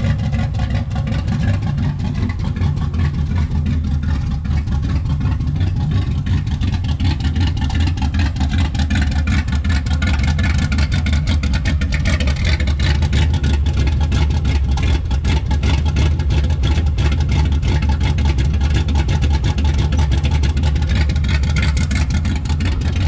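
1969 Chevrolet Impala's engine idling steadily in a rapid, even pulse, just after a start while it settles down.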